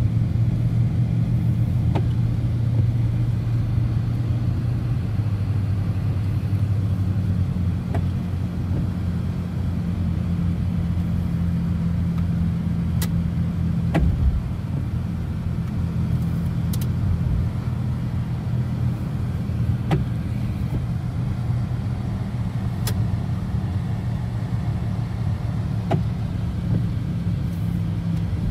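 A BMW car driving, heard from inside the cabin: a steady engine hum with road noise, its pitch shifting a few times. Faint sharp clicks come about every six seconds.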